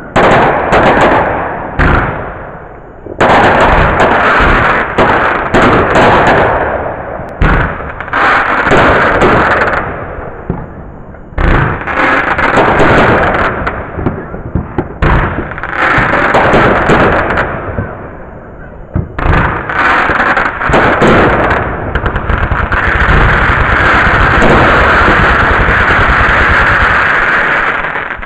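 Fireworks going off: long runs of loud, rapid crackling and popping, broken by a few short lulls, with an unbroken crackle over the last several seconds.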